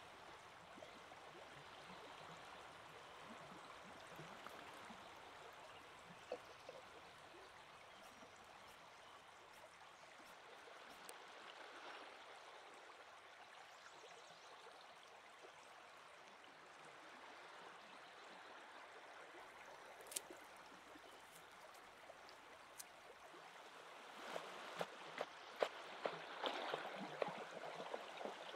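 Steady rush of a flowing river, with a kitchen knife tapping on a wooden cutting board in a quick run of chops near the end as garlic is minced.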